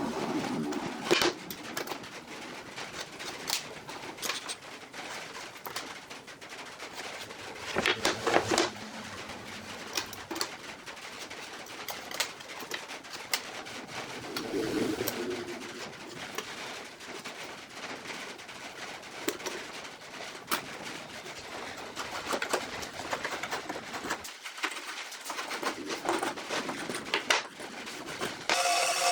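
Scattered light clicks and taps, with a few short low bird calls now and then.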